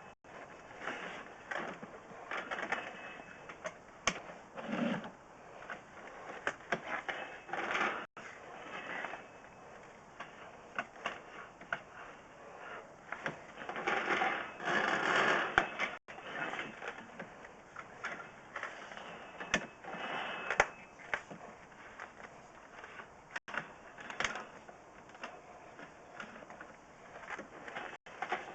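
Irregular scraping, rattling and sharp clicks of a sewer camera's push cable and spring being worked by hand against broken cast iron pipe, with a louder stretch of scraping about halfway through.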